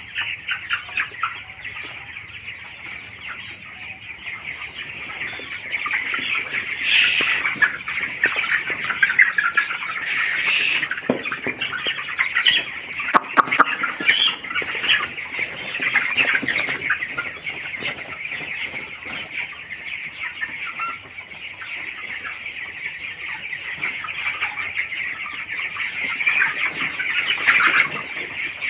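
A large flock of 21-day-old broiler chickens cheeping and clucking without pause, a dense, steady chatter of many birds at once, with a few brief louder moments.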